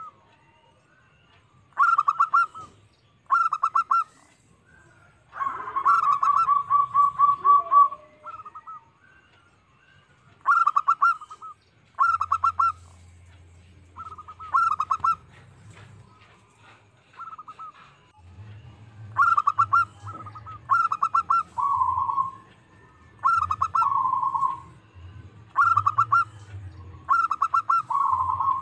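Zebra dove (perkutut) cooing: short phrases of rapid staccato notes, repeated every second or two, with one longer rolling trill about six seconds in. This is the bird's territorial song, used as a lure call to provoke rival zebra doves into answering.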